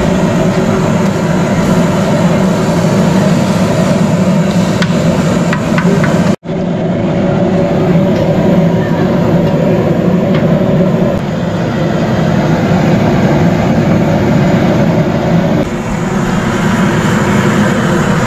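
A steady, loud mechanical hum, broken by a sudden brief dropout about six seconds in.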